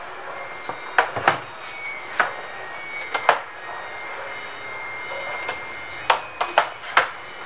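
Clear plastic freezer door cover being handled and set down on a sheet of cardboard: light knocks and clacks, a few single taps spread out, then three close together near the end, over a steady background hum.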